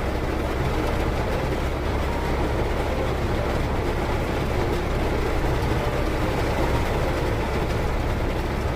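Heavy rain pelting the roof and body of a car, heard from inside the cabin as a steady, dense hiss over the low hum of the car's engine.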